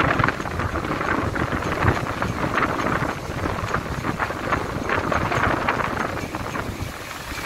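Strong storm wind buffeting the microphone in gusts, over the steady wash of heavy surf breaking on a sandy beach.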